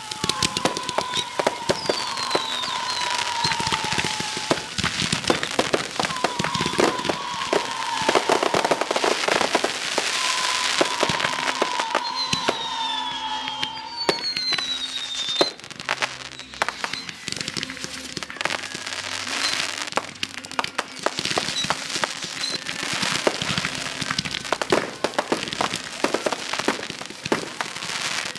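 Fireworks display: a dense run of bangs and crackles, with several falling whistles during the first half.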